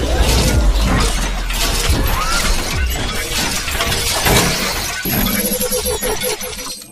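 Animated intro sound effects: a dense run of crashing, shattering hits over a low bass rumble, mixed with music.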